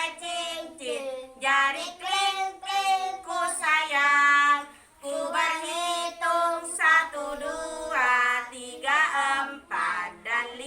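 Young children singing together with a woman's voice, a simple song sung in unison in short phrases with brief pauses between them.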